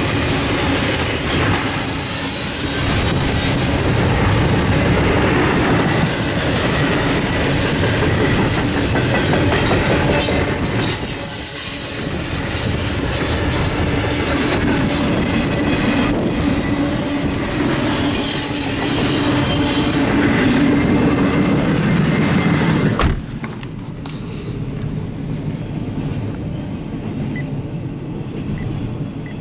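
Double-stack intermodal freight cars rolling past on steel wheels, with high wheel squeal over a steady rumble and clatter of the rail joints. Near the end the sound drops suddenly to a quieter level.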